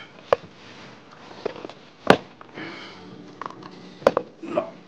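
A few sharp clicks and knocks of things being handled, the loudest about two seconds in, with soft breathy sniffs between them.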